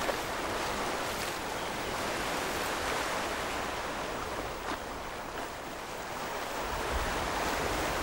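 Small surf waves washing onto a sandy beach: a steady hiss that swells and eases.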